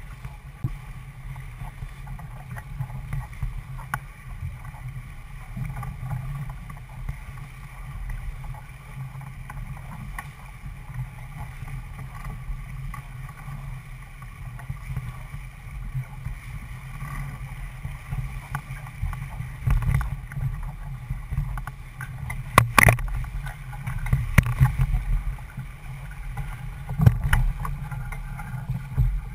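Wind buffeting the microphone and water rushing along the hull of a C&C 31 sailboat heeled under sail, getting louder in the second half. A few sharp knocks from the deck gear come about two-thirds of the way through and near the end, as the boat tacks.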